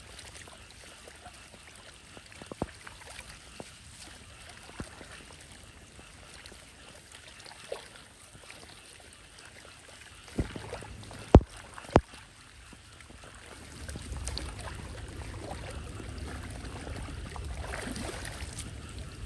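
Floodwater trickling and gurgling down a street drain, with a few sharp knocks a little past halfway. From about two-thirds through it turns into louder sloshing and splashing as a hand stirs the water over the drain.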